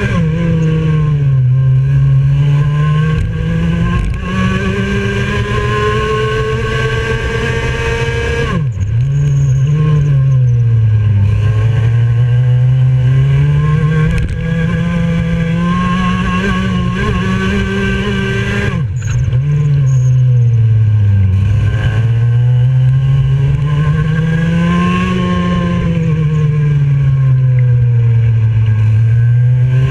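IAME X30 125cc two-stroke single-cylinder kart engine at racing speed, its pitch rising along the straights and falling into the corners, lap after lap. The note drops sharply twice, about nine and nineteen seconds in.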